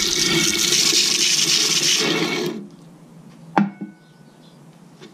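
A 12-inch Harbor Freight disc sander grinding a block of wood pressed against its spinning abrasive disc: a loud, steady hiss over the motor's hum that stops about two and a half seconds in, when the wood comes off the disc. A single sharp knock follows about a second later, then only a faint hum.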